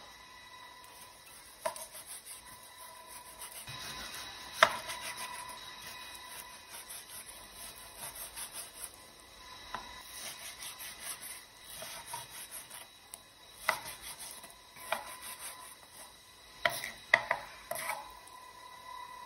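Chef's knife slicing through raw pork belly on a wooden cutting board: rasping back-and-forth strokes through rind and fat, with sharp knocks each time the blade reaches the board, several in quick succession near the end.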